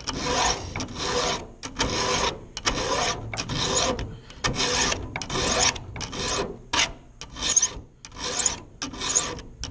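Round chainsaw file rasping across a steel chain cutter in repeated hand strokes, a little over one a second, each with a short pause between. The file is working out the gullet of a damaged cutter while it is reshaped.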